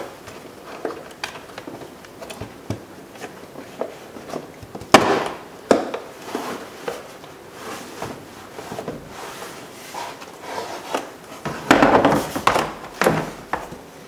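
Plastic door trim panel of a Honda Civic being lifted off the door and handled: scattered clicks, knocks and rubbing of hard plastic, with a sharp knock about five seconds in and a longer clatter near the end as the panel is set down.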